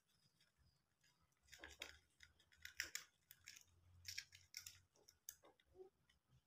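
Faint, irregular clicks and crackles from house mice struggling on a glue trap, their feet and bodies pulling at the sticky board.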